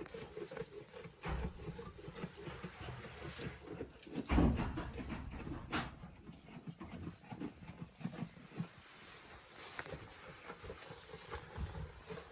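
Goats with newborn kids making low, irregular animal sounds as they move about. There is a louder knock about four seconds in and a sharp click near six seconds.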